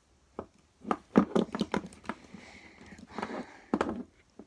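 Handling noise from plastic wrestling action figures being picked up, moved and set down: a run of knocks and clatters about a second in, then another cluster near the end.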